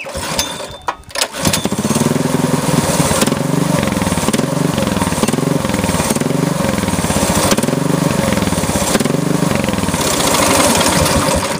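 Small go-kart engine starting about a second and a half in and running with its speed rising and falling over and over, then dying near the end. This surging is the owner's running problem: the engine only runs on choke, the governor arm keeps kicking in, and he suspects the carburetor or idle screw.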